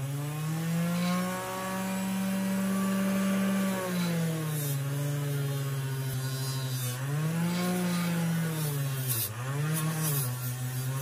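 Small 3-inch bench grinder running a fiber polishing wheel. It spins up to speed in the first second or so, then its pitch drops and recovers several times as metal knife parts are pressed against the wheel and eased off, with faint rubbing and scraping of the work on the wheel.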